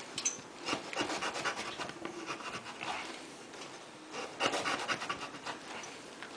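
Short lengths being cut from a fireproof stove-door sealing cord: irregular scraping, rasping strokes in several spells.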